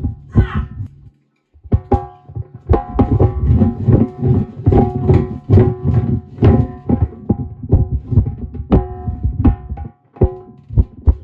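Background music: a fast, busy hand-drum beat over steady held tones. It drops out briefly about a second in and again near the end.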